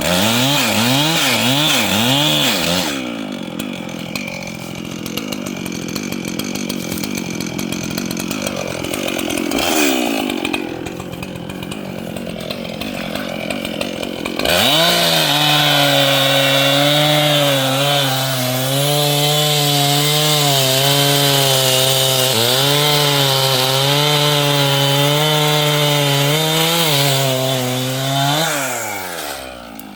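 Large two-stroke chainsaw revving up and down, then running lower and rougher for several seconds. About halfway through it climbs to full throttle and is held there while cutting wood, its pitch dipping now and then under load. Near the end it drops off briefly before revving up again.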